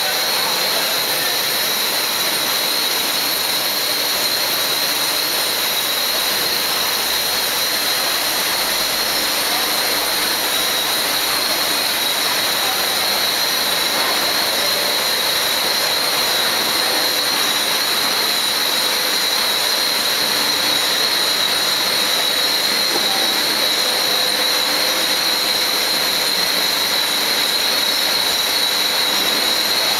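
Billet continuous casting machine running: a steady, loud, even hiss with a high whine riding on top.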